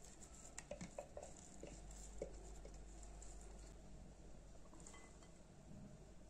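Faint taps and scrapes of a spoon against the bowl as a thick minced chicken mixture is scraped out, with a few soft clicks in the first three seconds, then quieter handling as diced potato is tipped into a glass bowl.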